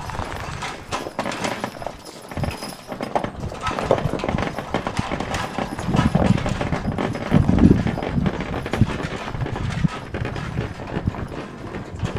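Hooves of large farm animals clopping and knocking irregularly, with a few heavier low thuds about halfway through.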